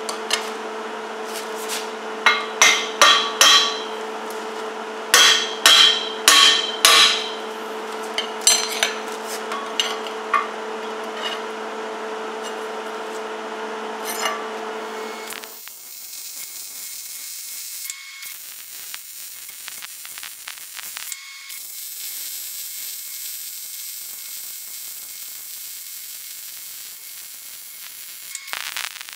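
A hammer strikes a steel part sharply, with ringing blows in two groups of about four, then lighter taps, over a steady hum: the part is being knocked square before it is welded. About halfway through the hum stops and the steady hissing crackle of a stick-welding arc takes over.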